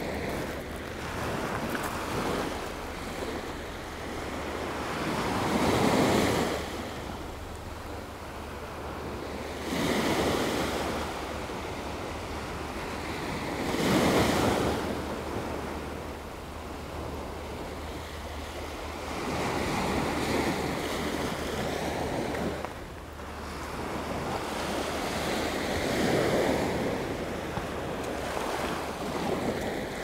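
Gulf of Mexico surf breaking and washing up on a sandy beach, swelling and fading about five times, every four to six seconds, with wind on the microphone.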